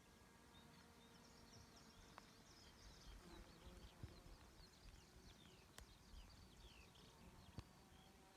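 Faint chirping of small birds: many short, quick downward-sliding notes, with a few soft clicks.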